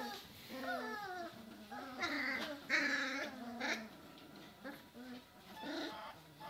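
German shorthaired pointer puppies whining, a string of high calls that bend up and down in pitch, loudest about two to three seconds in.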